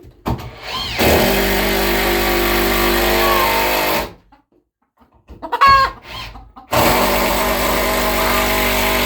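Power drill running steadily at full speed in two runs of about three seconds each, driving screws into wood. In the pause between them a hen gives a short rising squawk.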